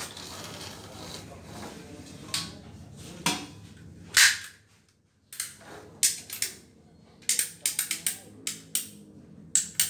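Ratcheting PVC pipe cutter clicking quickly, about five clicks a second, as its blade is worked through a blue PVC water pipe, starting about seven seconds in. Before that come a few sharp knocks from the pipe and the cutter being handled, the loudest about four seconds in.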